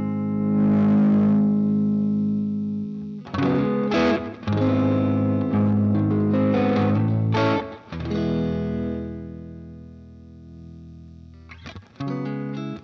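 Electric guitar played through the Minotaur overdrive pedal, giving a driven, slightly distorted tone. Chords are strummed in short phrases, then one chord is left to ring out and fade over a few seconds before a fresh strum near the end.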